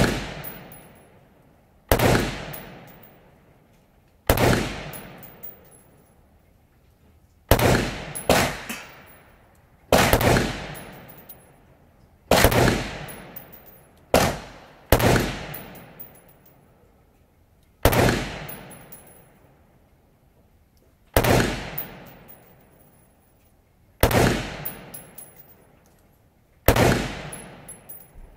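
Steyr AUG A3 rifle in 5.56/.223 firing slow, single aimed shots, about thirteen of them, mostly two to three seconds apart with a couple of quicker doubles. Each shot is a sharp crack that trails off in a long echo under the range roof.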